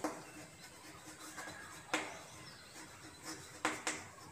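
Chalk writing on a chalkboard: faint scratching strokes, with two sharp taps of the chalk, about two seconds in and again near the end.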